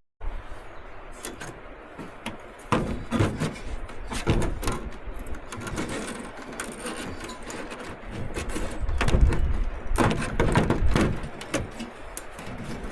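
Irregular knocks, clicks and clatter of hands-on work, starting just after a short break in the sound and growing busier about nine seconds in.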